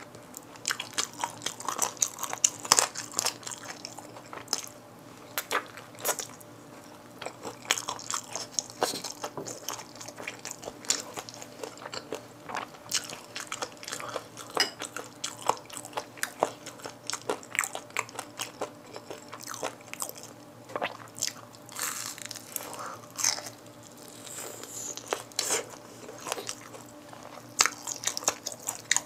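Close-miked crunching and chewing of sauce-glazed fried chicken legs and wings, with many sharp, crisp crackles of the fried skin all through.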